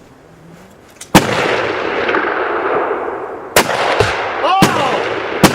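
Gunfire from several shooters: after a second of quiet, one very loud shot with a long rolling echo, then about four more sharp shots spread over the next few seconds.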